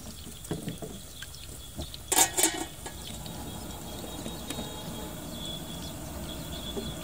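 An aluminium lid clatters onto a large aluminium cooking pot of rice and water about two seconds in, after a few lighter knocks and some sloshing of water. A steady low hiss follows.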